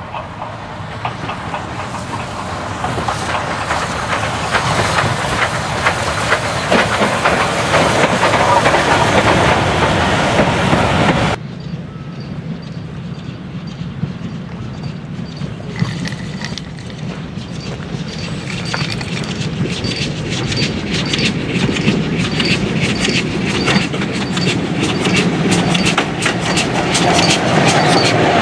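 Steam-hauled trains passing. First a steam locomotive and its coaches approach and run by with wheel clatter, growing louder. After a cut, a second train's wheels click steadily over the rail joints, building toward the end as GWR Hall class 4-6-0 No. 4953 'Pitchford Hall' runs close past.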